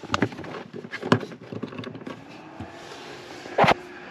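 Clicks and knocks of handling, then the van's newly installed exhaust fan switched on: its faint motor hum comes in about two seconds in, rises a little as it spins up and holds steady. A single sharp knock near the end.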